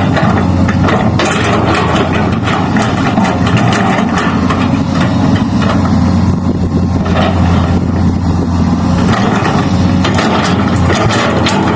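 Excavator's diesel engine running steadily, with frequent short knocks and clanks from the machine working; they thin out for a few seconds in the middle.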